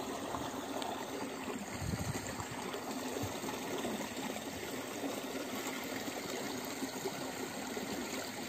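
Steady trickle of running water, an even bubbling hiss with no distinct events.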